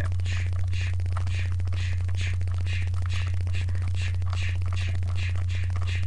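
Rubik's cube layers being turned in quick succession: a short scratchy plastic click-rasp about twice a second, over a loud steady electrical hum.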